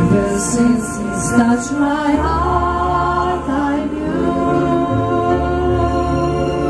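A choir singing sustained notes over a musical accompaniment with a deep bass line.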